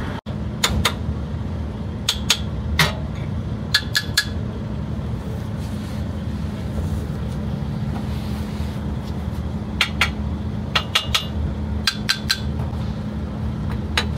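Hammer tapping on a truck's steel suspension and axle fittings: short metallic knocks in small groups of two or three, each ringing briefly, over a steady low hum. It is a tap test for loose parts: a clear ring like plain metal means a part is tight, while a loose one would sound tinnier and rattle.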